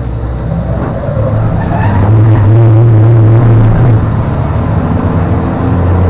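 MAN race truck's diesel engine heard from inside the cab, running hard under load: its pitch climbs over the first two seconds, holds, drops briefly about four seconds in, then pulls steadily again.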